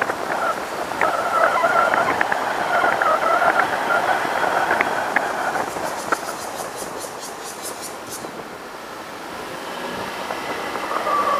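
Car driving along a road, heard from a camera mounted outside on the hood: a steady, wavering whine. For a couple of seconds in the middle a faint high buzz pulses about six times a second.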